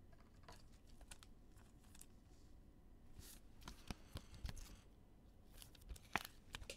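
Near silence with a few faint clicks and short rustles of trading cards and pack wrappers being handled, a cluster about three to four seconds in and a sharper click near the end.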